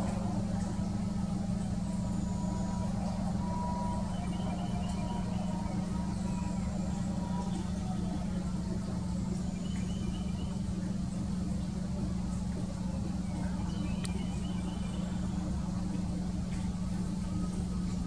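A steady low mechanical hum, with faint short bird calls now and then.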